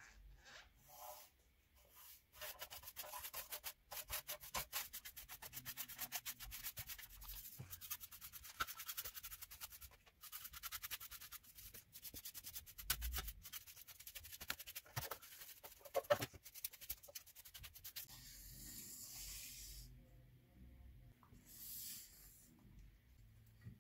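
Paintbrush bristles scrubbed quickly back and forth over an old rusty handsaw blade and its wooden handle, brushing off dirt and loose rust. The quick scratchy strokes stop about eighteen seconds in, followed by a few softer brushing and handling sounds.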